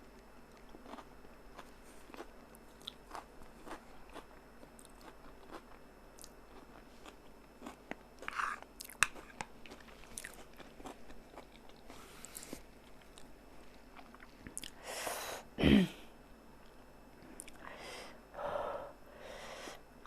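A person chewing and eating noodles, with soft wet mouth clicks and smacks throughout. Several short breathy mouth sounds come in the second half, the loudest about fifteen seconds in.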